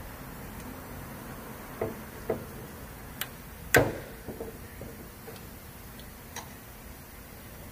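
Scattered clicks and knocks of tools and small engine parts being handled: two dull knocks about two seconds in, a sharp click, then the loudest clack with a short ring a little under four seconds in, a few faint taps after it and one light click near the end.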